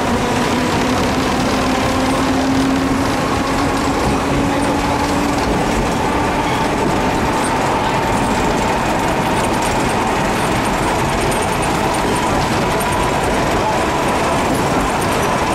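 Hiroden 100 series streetcar No. 101 running along street track, heard from its open front platform: steady wheel-on-rail running noise, with a motor whine that slowly rises in pitch over the first few seconds as the car picks up speed, then fades.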